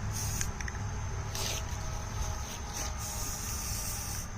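Aerosol can of Rust-Oleum Camouflage flat spray paint hissing in several short spurts as a helmet is coated, over a steady low hum.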